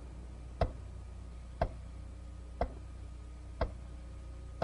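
Sharp ticks evenly spaced about once a second, clock-like, over a faint steady low hum.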